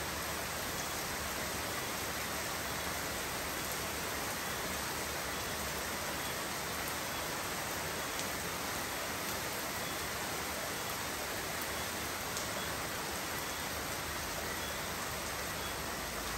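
Steady rain falling: an even hiss with a few faint ticks now and then.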